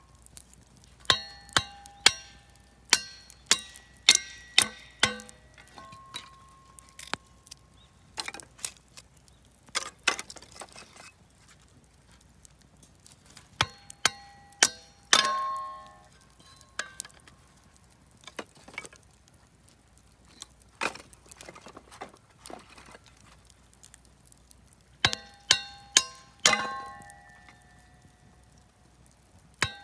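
Sharp metallic clinks and knocks, each ringing briefly, from tending a wood fire in a metal fire pit. They come in three bursts of several quick strikes: about a second in, around halfway, and near the end. Scattered single knocks and pops from the burning wood fall in between.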